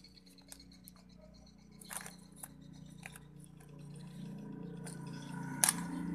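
Plastic clicks and knocks of a wireless handheld microphone body being handled as its battery section is fitted back together, with the sharpest click near the end. A faint steady hum grows louder from about halfway through.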